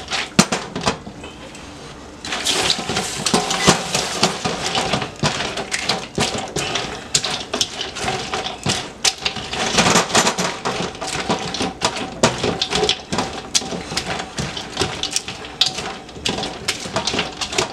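Metal tongs clicking and scraping against a stainless steel bowl while tortilla chips are tossed in salsa, with the chips rustling. After a short lull near the start, the tossing picks up about two seconds in and runs on in quick, irregular clicks.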